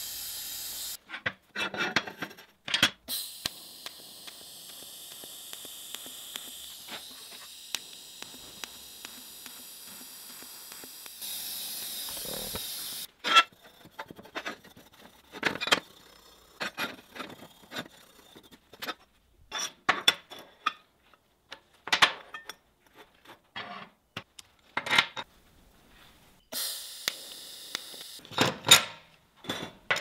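TIG welding arc hissing steadily for about ten seconds. Then a small wire brush scrubbing the weld on the steel tube, among scattered clicks and clanks of metal pieces set down on a steel welding table, with one more brief hiss of the arc near the end.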